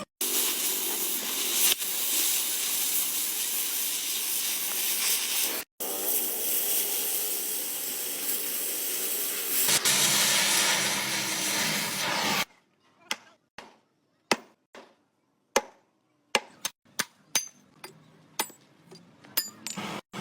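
Stick welding arc crackling and hissing steadily, cut off once briefly and then stopping about twelve seconds in. After that come scattered sharp taps and clicks.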